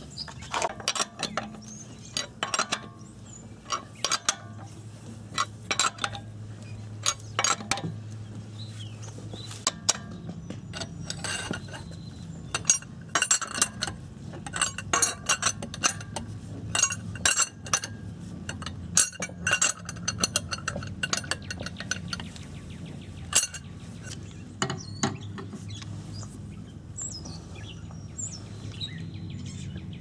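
Metal clinks and clicks of a car wheel's lug nuts being threaded onto the studs and tightened, many short sharp clicks, thickest in the middle stretch, over a low steady hum.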